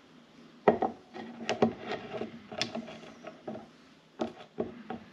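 Short pieces of metal hex bar stock set down on a plywood tabletop and knocked against each other: a string of sharp clacks and clicks, some in quick pairs.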